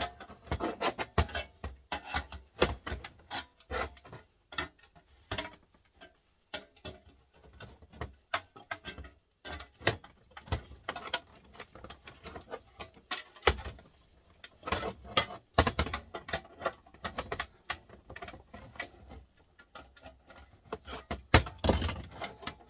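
Irregular clicks, knocks and scraping of plastic and metal printer parts being handled and pried apart by hand. A few louder knocks stand out, the loudest near the end.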